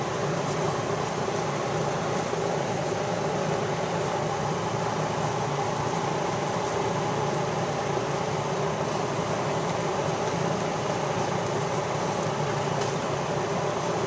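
Steady mechanical hum and hiss from a running machine, with several constant low tones at an even level.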